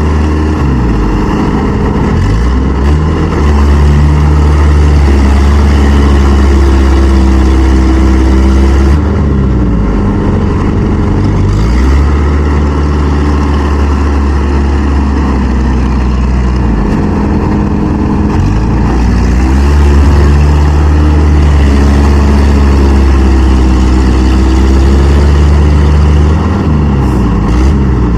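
Engines of the farm machines freeing a mud-stuck Kubota rice harvester, running hard under heavy load. The engine note sags and recovers about four times as the machines labour in deep mud.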